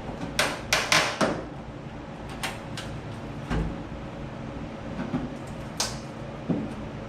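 Irregular clicks, knocks and scrapes from a 1973 Ford F100 door being worked on as its window seal is pried and pulled off its hooks. There is a cluster of knocks about a second in and a sharper one near the end.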